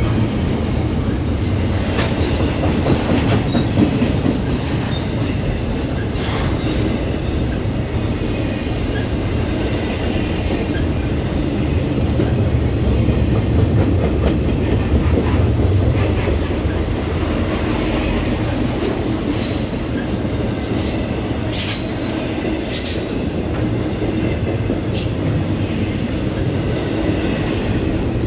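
A train passing close by, its wheels running on the rails in a steady loud rumble with occasional clicks. Several short, high-pitched wheel squeals come in the second half.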